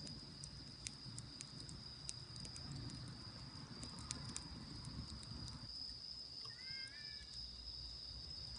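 Campfire crackling with scattered sharp pops, over a steady high-pitched insect trill; a short chirping call with rising and falling notes sounds about three-quarters of the way through.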